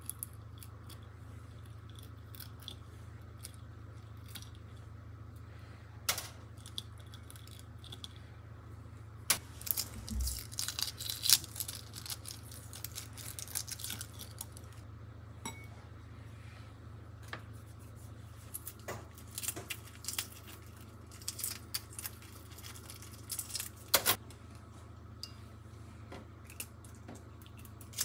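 Hard-boiled eggs being peeled by hand: eggshell cracking and crackling in scattered sharp clicks, sparse at first and frequent from about a third of the way in. A low steady hum runs underneath.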